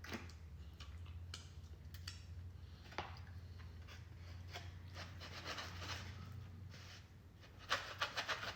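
Cutlery scraping and clicking on a plate while food is cut and eaten, with a run of sharp clicks near the end, over a steady low hum.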